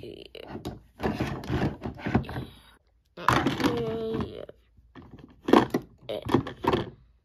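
Plastic toy cookware and toy pasta knocking and clattering as they are handled in a toy kitchen, in a run of irregular bumps.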